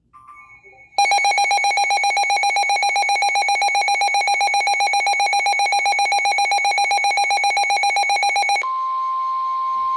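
Emergency weather alert tones. About a second in, a loud, fast pulsing beep starts, about eight pulses a second, like a weather-alert receiver's alarm. Near the end it gives way to one steady high tone, typical of the NOAA Weather Radio warning alarm tone that comes before a new warning.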